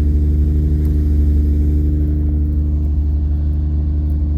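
Honda J32 V6 engine idling steadily while warming up after a cold start.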